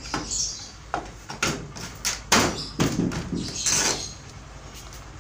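Plastic clicks, knocks and short scrapes from an Electrolux clothes dryer's front control panel being pushed back into place and its timer knob being handled.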